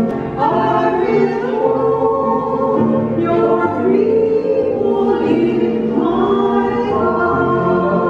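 A small group of nuns singing a hymn together, accompanied by an upright piano.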